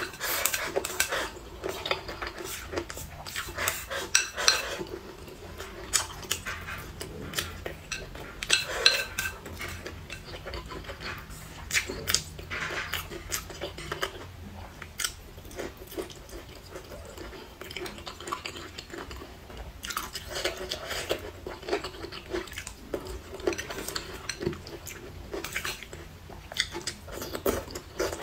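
Mouth sounds of eating: chewing and sucking in soft, saucy food, with wooden chopsticks clicking against a ceramic bowl again and again.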